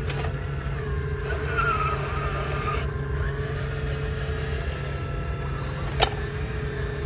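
Hydraulic pump and motors of a radio-controlled CAT 320 scale excavator running with a steady hum and whine, the pitch shifting as the boom lifts and the long arm swings out. A single sharp click about six seconds in.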